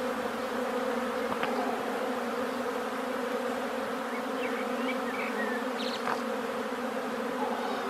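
A swarm of honeybees buzzing steadily, a dense hum of many wings, as the swarm is being hived into a straw skep.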